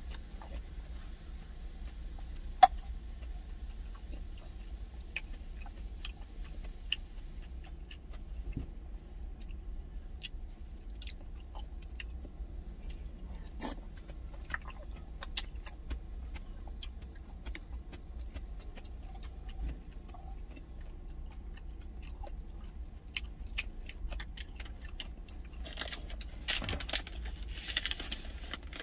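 Eating rice soaked in cheonggukjang from an insulated lunch jar: a spoon clicks and scrapes against the jar now and then, with chewing. Near the end comes a longer noisy slurp as the broth is drunk from the tipped jar. A low steady hum runs underneath.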